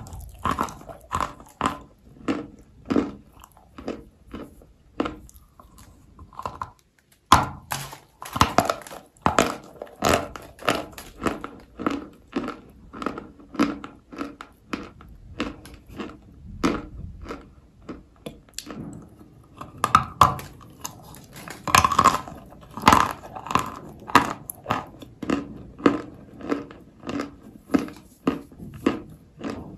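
Turkestan clay being bitten and chewed close to the microphone: a steady run of crisp crunches, about two a second. A short pause comes about a quarter of the way in, then a hard bite starts the chewing again.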